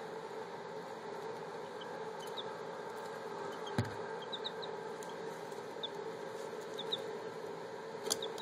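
Baby chicks peeping: short, high cheeps scattered through, over a steady background hum. A single thump about four seconds in is the loudest sound, and a few sharp clicks come near the end.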